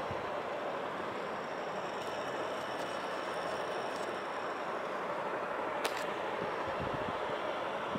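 Steady rushing background noise, with one sharp click about six seconds in.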